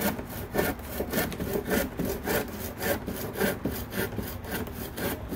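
Hand crosscut saw cutting across a 2x4, steady back-and-forth strokes of the teeth rasping through the wood, about two strokes a second, with the cut just started from its notch.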